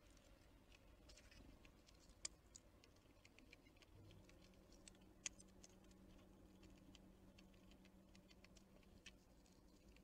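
Faint, irregular tapping and clicking of small animals pecking at and handling seeds on a feeder, with a few sharper taps standing out.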